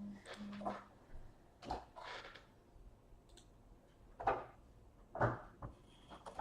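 Trading cards and their packaging being handled: a few separate short rustling swishes and soft knocks.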